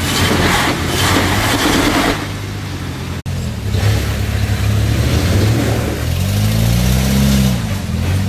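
Jeep engine working its way along an off-road trail, revving up and back down about six to seven seconds in. In the first two seconds there are bursts of rushing noise.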